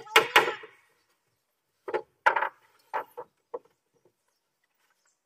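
Wooden knocks and clunks: a quick cluster of several at the start, then a handful more spread over the next few seconds, like boards being handled or struck.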